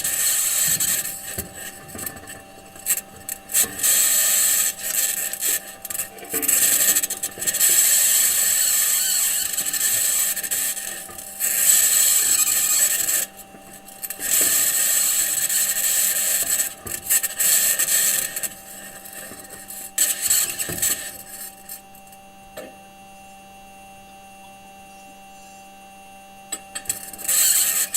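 NASA Perseverance rover's metal wheels grinding, scraping and rattling over sandy, rocky Martian ground, picked up by the rover's own microphone in bursts of a few seconds with short pauses. A steady two-tone hum runs beneath, and near the end the grinding stops for about five seconds, leaving only the hum.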